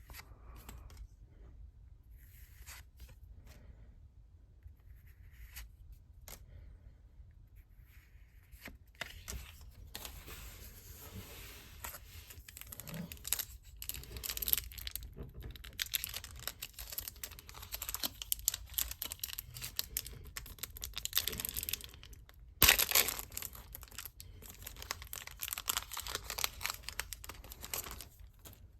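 Pokémon trading card packaging being torn open and crinkled: a few scattered rustles at first, then almost continuous crinkling from about a third of the way in, with one loud tear about three quarters of the way through.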